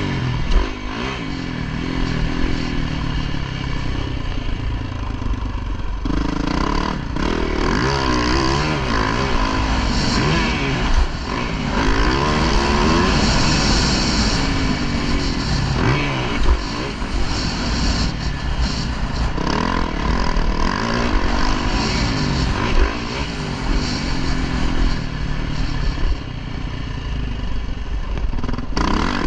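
Motocross bike engine at racing speed, revving up and dropping back again and again as the rider shifts gears and rolls off the throttle, with a rushing noise under it.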